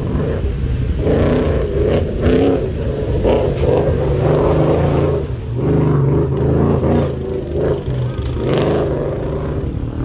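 Off-road rally vehicle engine running and revving, its pitch rising and falling.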